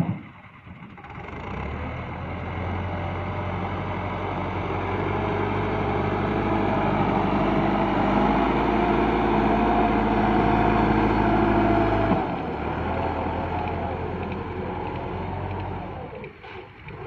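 Massey Ferguson 385 tractor's four-cylinder diesel engine running steadily under load while its front blade pushes soil. It grows louder toward the middle and drops back about twelve seconds in.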